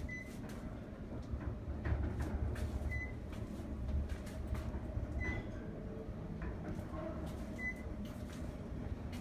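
Otis inclined elevator car travelling along its inclined track: a steady low rumble with light rattles and clicks. A short, high beep sounds about every two and a half seconds.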